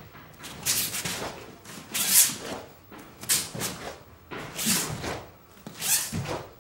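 A karate gi snapping and swishing with each punch, block and step of a kata, in short sharp bursts at uneven spacing, about one a second.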